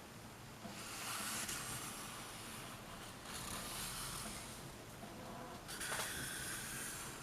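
A pen scratching along the paper backing of clear contact as it traces around a tablet, in three long strokes with a small click near the end.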